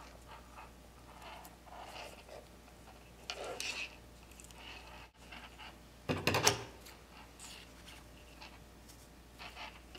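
Paracord rubbing and rustling under the fingers as the braid is handled and pulled tight, in short scraping bursts. The loudest is a handling knock about six seconds in.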